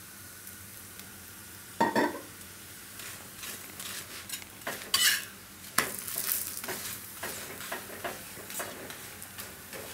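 A thepla frying on a hot iron tawa: oil drizzled onto it gives a loud sizzle about two seconds in. After that a steel spatula presses and scrapes the flatbread against the pan, with sharp scrapes and clicks over a steady sizzle.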